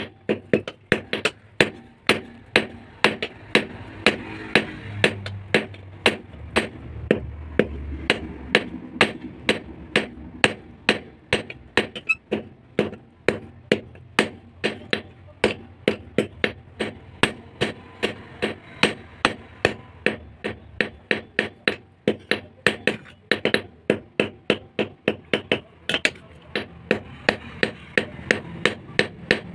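Hammer blows on hot steel as a basula (carpenter's adze) blade is forged: a steady run of sharp, ringing strikes, about two to three a second.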